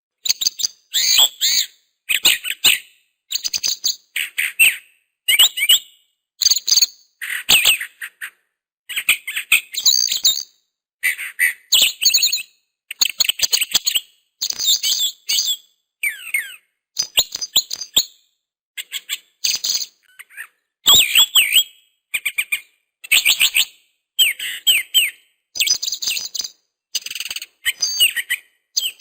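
Bird chirping in short bursts of rapid, high twittering notes, about one burst a second, with dead-silent gaps between the bursts.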